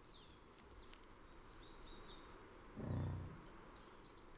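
A bison gives one short, low grunt about three seconds in, over scattered high bird chirps.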